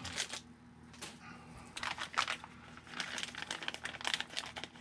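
Plastic parts bag crinkling in the hands and being cut open with scissors: a run of small crackles, sparse at first and busier from about two seconds in.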